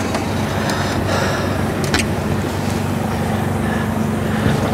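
Heavy diesel truck engine running steadily, with a single short click about two seconds in.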